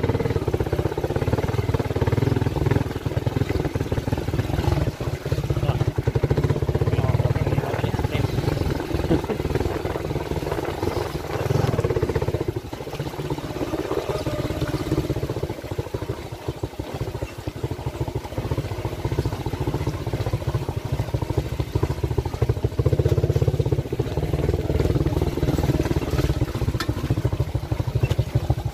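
Motorcycle engine running steadily as the bike rides over a rough, muddy dirt road, with the sound dipping briefly a few times partway through.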